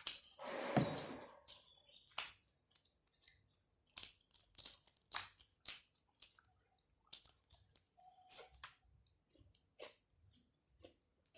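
Close-miked mouth sounds of eating boiled chicken and rice: wet chewing with many short, sharp lip smacks and clicks at an uneven pace. A louder, breathy noise about a second long comes at the start.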